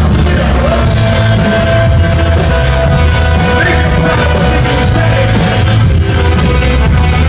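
Loud live band music with heavy bass and drums and a held vocal or instrument line, as heard from the crowd at a club gig.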